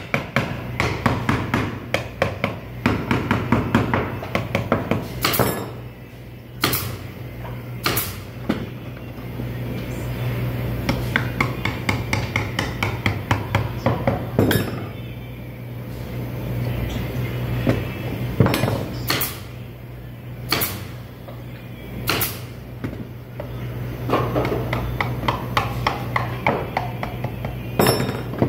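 Small hammer nailing together a thin wooden box: quick runs of light taps, broken by single harder blows every second or two. A steady low hum runs underneath.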